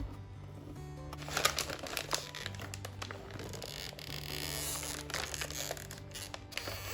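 Background music with a steady bass line, and crinkling, rustling handling noises over it about a second in and again midway.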